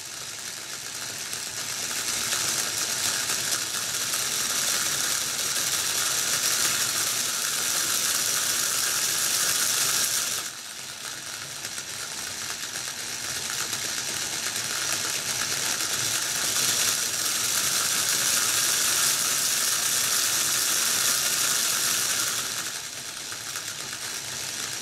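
Small DC electric motor driving a toy windmill through reduction gears and a gear pair, whirring with a gear-meshing rattle. It gets louder as the voltage is turned up and the pinwheel speeds up, drops suddenly about ten seconds in, then builds again and drops back near the end.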